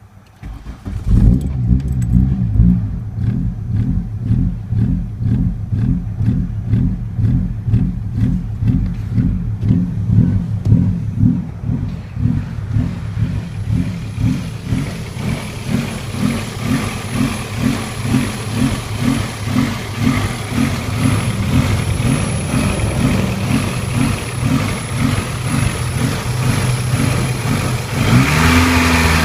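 16-valve four-cylinder car engine idling roughly, its level pulsing in a steady rhythm of about two beats a second after it comes in about a second in. Near the end the revs rise briefly and drop back: the idle surge the owner is trying to diagnose.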